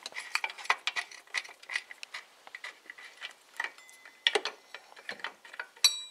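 Irregular small metallic clicks and ticks as the central bolt of the ribbed-belt tensioner arm is worked loose, with one sharp ringing metal clink near the end.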